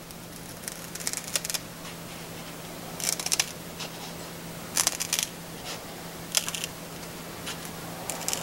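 A sharp pair of scissors cutting a plastic electroluminescent backlight strip, in short crunching snips that come in about five bursts a second or two apart.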